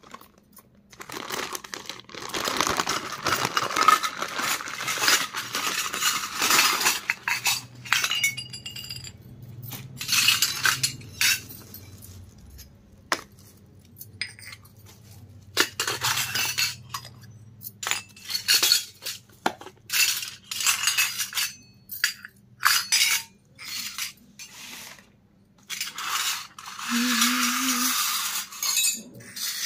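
Clear plastic bag crinkling and rustling as it is opened, then a long run of separate sharp clinks and taps as miniature stainless steel toy pots, cups and containers are taken out and set down on a concrete floor, with more plastic rustling near the end.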